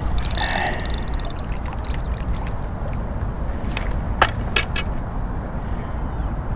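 Water splashing and trickling over a steady low rumble, with a few sharp clicks about four seconds in.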